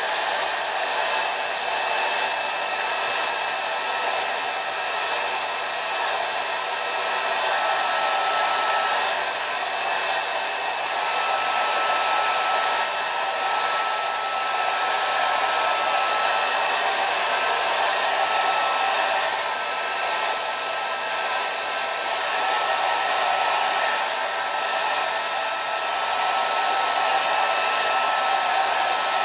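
Paint being sprayed onto a motorcycle side panel: a steady hissing rush of air and paint mist that runs without pause, swelling slightly now and then.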